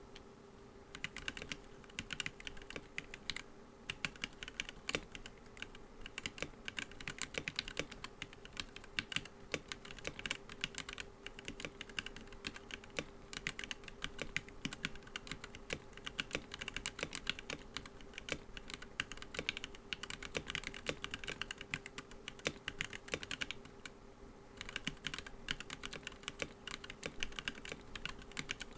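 Typing on a Womier K87 mechanical keyboard with POM keycaps: rapid, irregular key clacks starting about a second in, with a brief pause near the end. A faint steady hum runs underneath.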